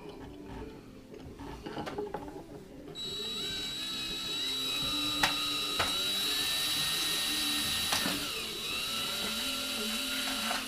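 Electric hand drill starting about three seconds in and running steadily with a high whine while drilling out a rivet head, with a couple of sharp clicks; it stops at the end.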